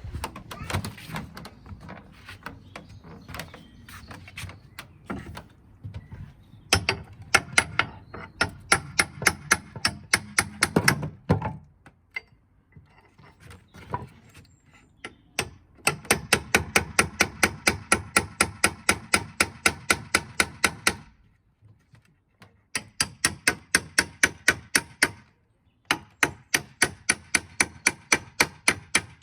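Hammer striking a cold chisel driven between the slats of a wooden pallet, in quick runs of sharp blows, about four or five a second, with short pauses between runs.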